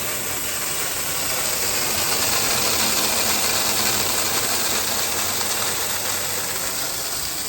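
Water hissing and spraying from a split sprinkler head under pressure while the irrigation zone runs, a steady hiss that swells slightly partway through.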